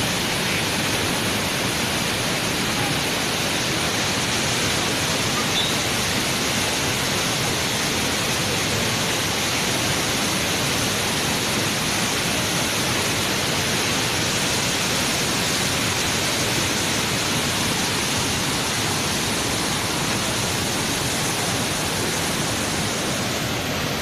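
Steady rushing of white water pouring down a waterfall over rock slabs into the pool below, an even, unbroken noise.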